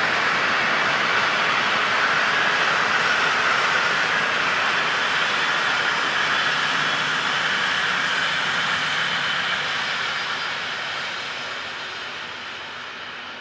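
Steam locomotive 01 1075 running at speed with its train of coaches: a steady, loud rush of exhaust and rolling wheels that fades over the last few seconds as the train draws away.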